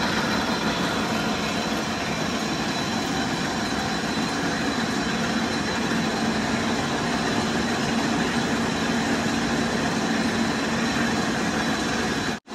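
Jute mill machinery running steadily: a dense, even din with a low hum and a high whine held through it.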